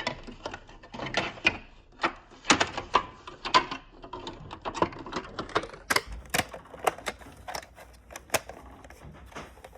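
Irregular sharp plastic clicks and taps from hands fitting the screen assembly and cable connectors of a Canon copier's control panel back into place. The clicks come unevenly, a few at a time, and are sharper in the second half.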